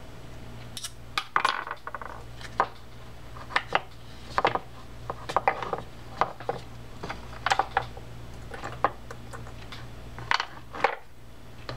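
Irregular small clicks and taps as the metal and plastic parts of a South Bend Mudville spinning reel, its shaft and a small hand tool are handled and set down on a workbench mat, over a steady low hum.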